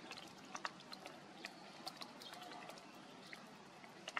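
Faint outdoor ambience with small clicks and ticks scattered irregularly through it, a few of them sharper, with a louder click right at the end.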